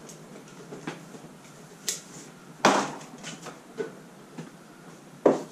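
Short, sharp knocks and clatters of objects being moved, picked up and set down while someone rummages along a wooden workbench and shelf, about one a second, the loudest a little after halfway and another near the end.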